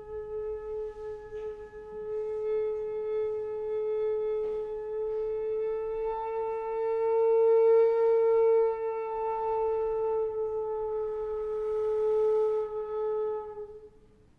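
Helder tenor recorder holding a single long, steady note, swelling to its loudest about halfway through and fading out near the end.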